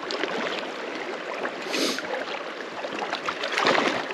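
Fast river current rushing and splashing around wading legs, with two louder bursts, about two seconds in and near the end.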